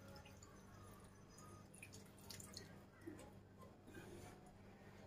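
Near silence over a faint low hum, with a few faint drips as the last of a tomato-paste sauce runs off a tipped pot into a pan of minced meat.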